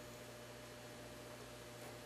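Faint steady hiss with a low electrical hum: quiet room tone.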